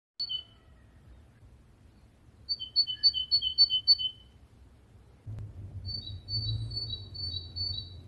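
A songbird singing: a short two-note call at the start, then two phrases of repeated high-low note pairs, about three pairs a second, the second phrase pitched a little differently from the first. A low rumble comes in about five seconds in.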